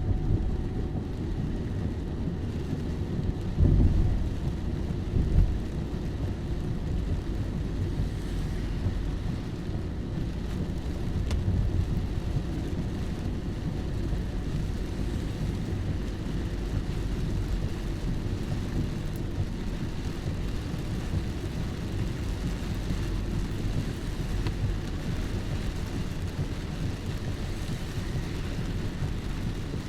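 Steady rain, a dense even noise heavy in the low end with fainter hiss above. Two brief, louder low swells come about four and five seconds in.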